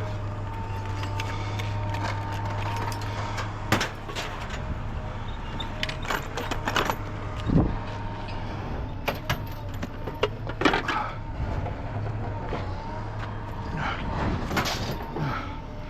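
A vehicle engine running steadily at idle, with scattered sharp knocks and clanks through it, a few of them louder.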